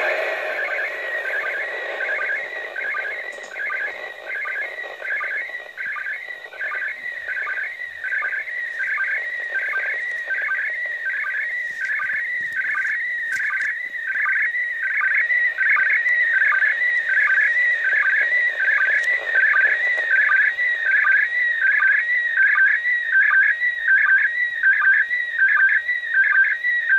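Slow-scan television (SSTV) picture signal from the International Space Station, heard through a 2 m FM transceiver's speaker on 145.800 MHz. It is a warbling electronic tone that dips to a short, lower sync tone about twice a second, each dip marking a new scan line of the image.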